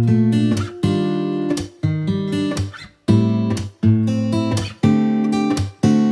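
Background music: acoustic guitar strumming chords, a new chord struck about once a second.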